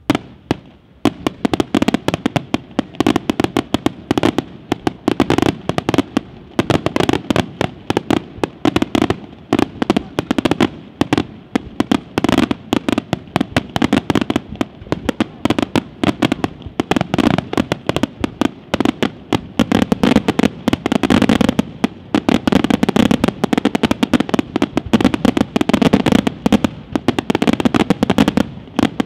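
Aerial firework shells bursting in a dense, continuous barrage, many sharp bangs a second, starting about a second in.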